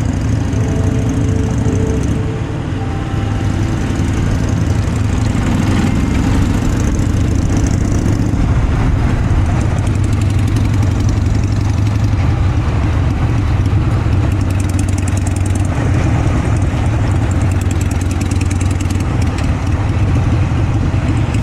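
Motorcycle engine running steadily, its note and loudness holding even throughout.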